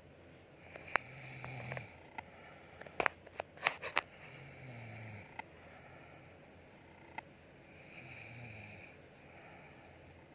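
Snoring: three slow, buzzing snores about three and a half seconds apart, one per breath. Between the first and second snores comes a quick run of sharp clicks or taps, the loudest sounds here.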